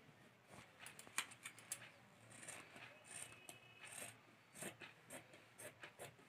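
Scissors cutting through blouse fabric: a faint, irregular run of short blade snips and clicks, with brief rasps of the cloth being sheared and handled.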